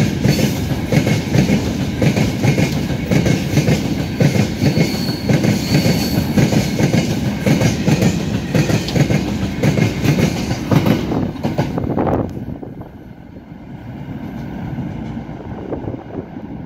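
Open-top freight gondola wagons rolling past at close range: a loud, steady clatter of wheels over rail joints. About twelve seconds in the sound drops suddenly to a quieter, duller rumble of a freight train moving away.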